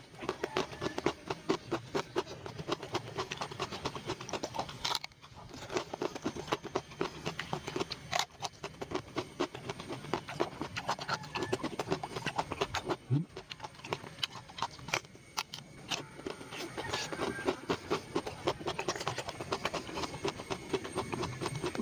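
Close-miked chewing with rapid wet mouth clicks and smacks, several a second, pausing briefly about 5 and 13 seconds in.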